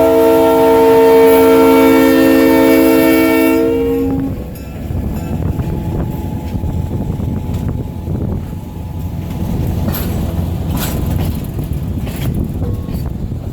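Locomotive air horn sounding a held chord of several notes, cut off about four seconds in, followed by a train rumbling past with wheels clicking over the rails.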